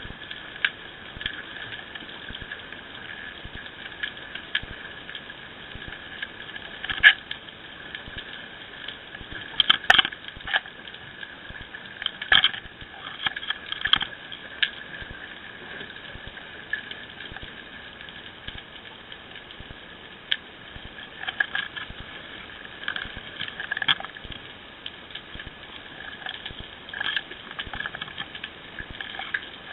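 Underwater recording from a camera mounted on a squid jig: a steady high hiss with constant fine crackling and scattered sharp clicks and knocks, a few of them much louder than the rest.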